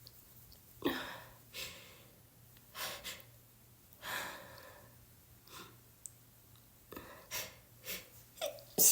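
A person with a head cold breathing in short, noisy breaths and sniffles. The breaths come faster and closer together toward the end, and a sudden loud burst right at the end begins a sneeze.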